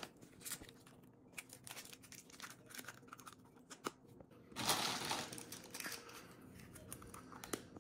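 Small clicks and crinkling as plastic Easter eggs are handled and snapped shut and candy wrappers are handled, with a louder rustle about five seconds in.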